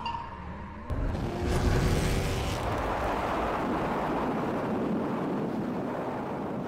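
A loud, even rushing and rumbling noise that comes in abruptly about a second in, after the last music notes die away, and then slowly fades.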